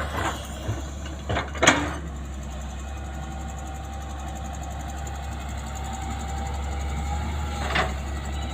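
Backhoe engine running steadily, with a few sharp knocks in the first two seconds, the loudest just before two seconds in, and one more near the end.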